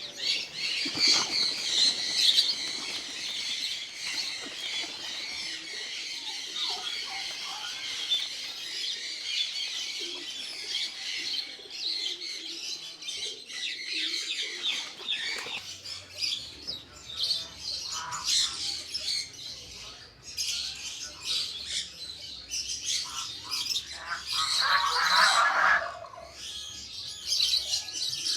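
Many birds chirping together, with wing flapping, as pigeons are let out of their loft; a louder squawking call stands out about twenty-five seconds in.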